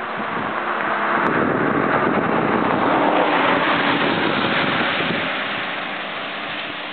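A motor vehicle passing, its rushing noise swelling to its loudest about three seconds in and then fading.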